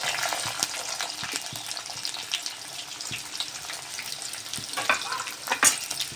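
Freshly added sliced onions frying in hot oil in a metal kadhai: a steady sizzling hiss with scattered small pops and crackles. A few sharper clicks stand out about five seconds in.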